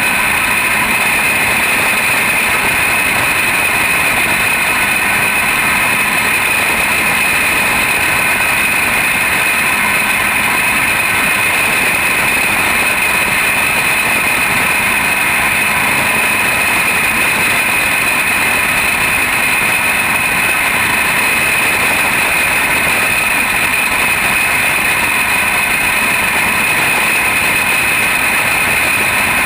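Junior champ kart's small engine running flat out at steady high revs, heard close up from on board the kart as it laps a dirt oval.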